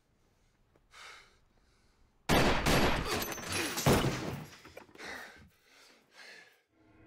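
Gunshots fired in a rapid burst, starting suddenly a little over two seconds in and going on for about two seconds, with a second loud shot near the end of the burst.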